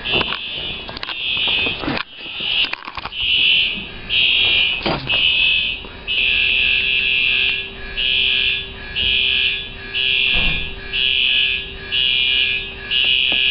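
Simplex TrueAlert fire alarm horns sounding a pulse pattern, a loud high-pitched blast about once a second.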